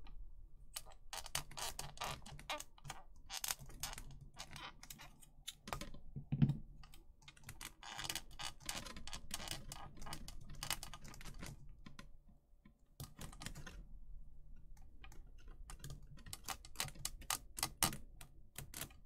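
Plastic statue pieces clicking and tapping against each other as a wing and arm are worked into place on a figure. There is a run of small irregular clicks, with one louder knock about six and a half seconds in.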